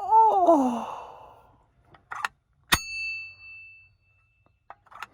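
A man's loud groan, falling in pitch, at the start, then about three seconds in a single sharp metal-on-metal strike that rings briefly. A couple of lighter clicks come before and after it.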